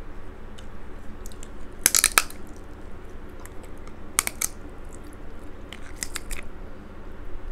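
Crab leg shell cracking and snapping as it is pulled apart and bitten, with chewing close to the microphone. Clusters of sharp cracks come about two, four and six seconds in.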